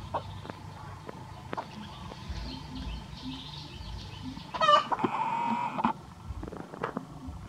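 A chicken gives one loud, drawn-out call about a second long a little past halfway, its pitch wavering down at first and then held steady. Before it there is faint clucking and scattered small clicks.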